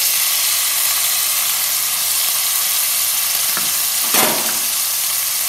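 Grated onions sizzling steadily in hot refined oil in a kadhai, with a brief metallic clank about four seconds in.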